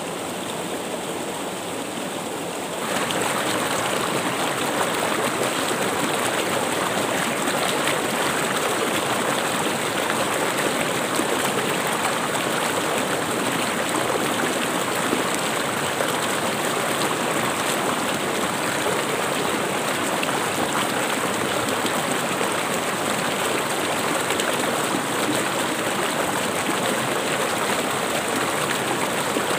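River water rushing over rocks and a small cascade in a shallow rocky stream, a steady rushing that gets louder about three seconds in.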